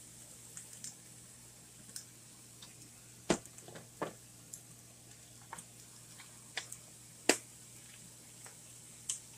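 Irregular sharp clicks and taps of spice shakers and their lids being handled and set down on the stovetop while seasoning chicken, about ten in all, the loudest about three and seven seconds in.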